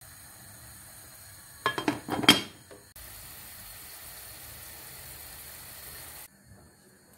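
A quick clatter of dishes and cutlery clinking together, then a steady hiss for about three seconds that starts and stops abruptly.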